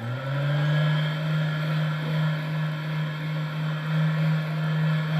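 A recorded sound effect of a motor played back through a speaker: it winds up in pitch as it starts, then runs at a loud, steady hum.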